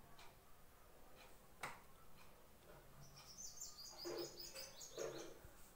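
Near-silent room tone. About three seconds in, a small bird chirps faintly, a quick run of short high notes lasting about two seconds. A single soft click comes earlier.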